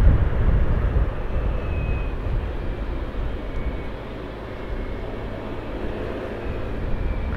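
Vehicle travelling along a road: steady engine and road noise with some wind rumble, easing off a little midway and picking up again toward the end.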